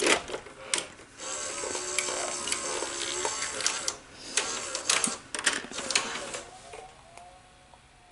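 ED Beta Betamax video deck loading a tape into playback: a few clicks and clunks, a motor whirring for a few seconds, another run of clicks, then a faint steady tone near the end as it settles into play.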